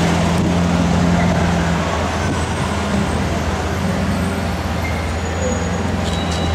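Mercedes-Benz C63 AMG Black Series 6.2-litre V8 with an aftermarket MHP exhaust, a steady low rumble as the car creeps along in traffic without revving.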